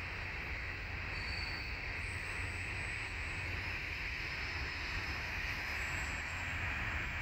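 Wind rumbling on the microphone over a steady outdoor hiss, with the faint high whine of an Opterra RC flying wing's electric motor and propeller, its pitch changing a few times as the plane flies past and climbs.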